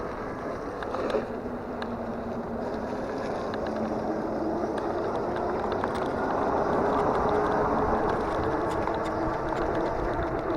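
Ecotric Fat20 fat-tire electric bike being ridden: steady tyre and wind noise with a faint motor whine, growing louder partway through. A single knock about a second in.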